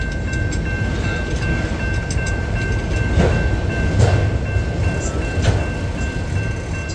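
Railroad crossing bell ringing steadily over the low rumble of an autorack freight train rolling past, with wheels clacking over the rail joints a few times.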